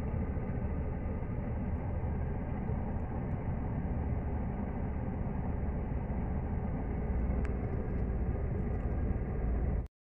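Steady low rumble of a car on the move, heard from inside the cabin. It cuts off abruptly near the end.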